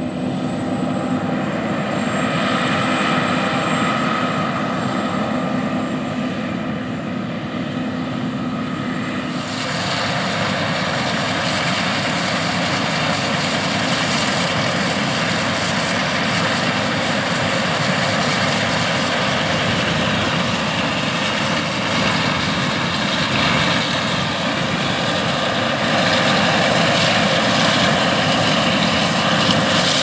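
John Deere S780 combine harvesting wheat and unloading on the go, running alongside a John Deere 9570RX track tractor pulling the grain cart: a steady drone of diesel engines and threshing machinery. The sound turns fuller and noisier about ten seconds in.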